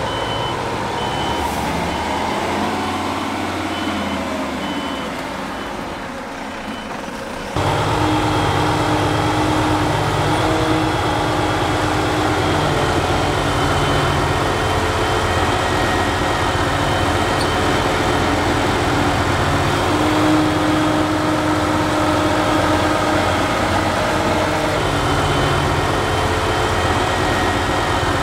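A truck's reversing alarm beeps at a steady pace over running diesel engines. About seven seconds in, the sound cuts to a louder, steady heavy diesel engine running: the MAN agro truck working its Fliegl push-off trailer as it unloads maize silage.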